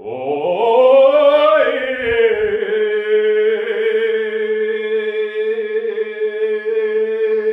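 A man singing unaccompanied, holding one long wordless note. His voice slides upward over the first second and a half, then stays at one pitch with a slight waver for about six seconds.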